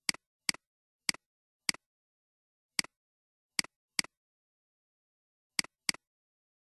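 Computer mouse clicks: nine sharp, irregularly spaced clicks, each a press followed closely by a softer release.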